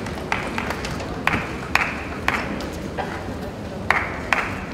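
Table tennis balls clicking against bats and table about eight times at an uneven rally pace, each click ringing briefly in the large hall, over a low murmur of voices.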